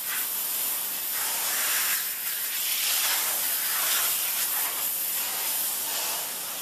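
Water jet from a 3000 psi pressure washer spraying against plastic lawn chairs: a loud, steady hiss that swells and eases as the jet sweeps across the surfaces. The washer's engine is not heard.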